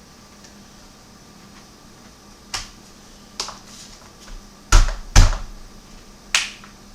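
Plastic surface wiring channel being pushed and snapped into its fitting: a series of sharp plastic clicks and knocks, five in all, the two loudest about half a second apart.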